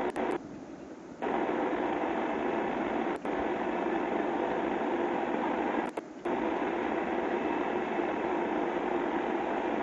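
Steady hissing noise with no distinct events, cutting out abruptly for about a second just after the start and again briefly around six seconds in.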